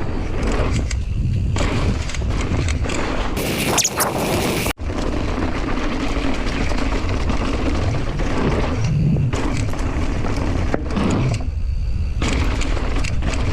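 Wind buffeting the camera microphone and tyre and trail rumble from a mountain bike descending fast on a loose trail, with a short break in the sound about five seconds in.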